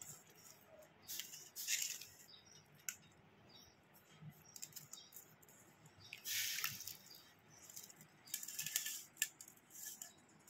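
Faint rustling and crinkling of newspaper as soaked grated carrot and mango pieces are spread out by hand to dry, in three short bursts.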